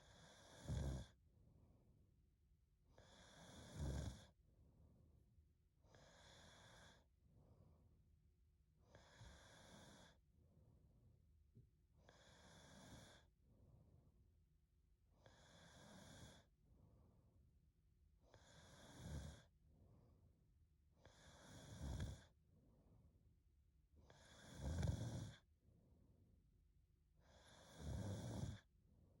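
A young woman snoring in her sleep, one snoring breath about every three seconds, about ten in all, some noticeably louder than others.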